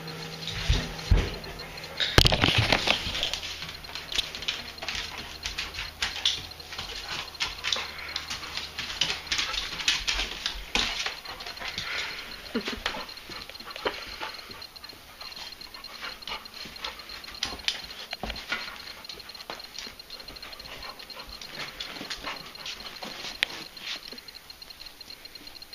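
A dog moving about, its claws clicking and pattering on the floor amid scattered rustles, with a louder burst of rustling about two seconds in.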